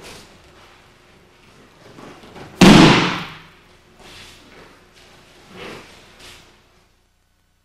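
An aikido partner thrown onto the dojo mat and landing in a breakfall: one loud slap about two and a half seconds in that dies away within half a second. A few softer thuds and scuffs follow.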